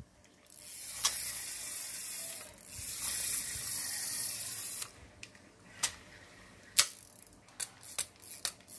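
A Daiwa spinning reel's handle being cranked: an even, smooth whir of the gears and rotor in two spells of about two seconds each, showing the reel runs smoothly. After that come several separate sharp clicks as the reel is handled.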